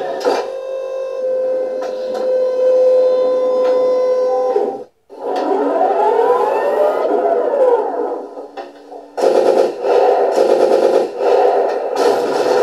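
Machine motor whine: a steady tone that cuts out about five seconds in, then restarts with its pitch rising and falling back in arcs, then turns rougher and pulsing.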